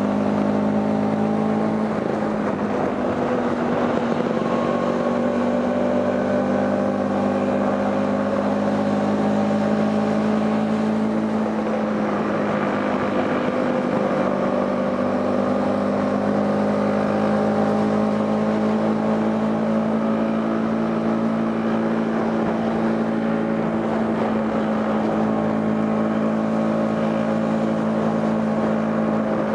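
Scooter engine running steadily under way, its pitch holding fairly constant with only slight drifts up and down.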